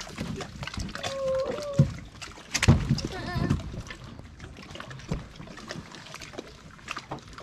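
Knocks and thumps from a big flathead catfish being handled on the carpeted deck of an aluminum jon boat while it is worked off the hook, the loudest thumps about two and a half seconds in. A short hum-like voice sounds about a second in.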